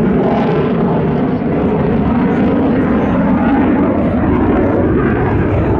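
Saab JAS 39 Gripen C fighter's single turbofan jet engine, a loud, steady jet roar as the aircraft manoeuvres overhead.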